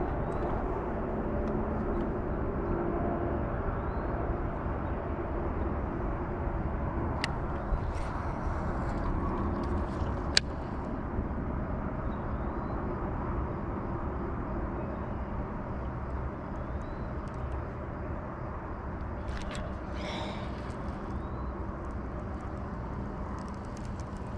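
Steady low rumbling outdoor noise, with two sharp clicks a few seconds apart near the middle.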